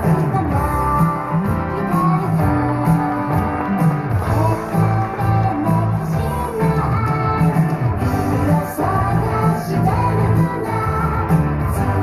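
Recorded pop-rock song with singing, guitar and a pulsing bass line, playing over the venue's loudspeakers.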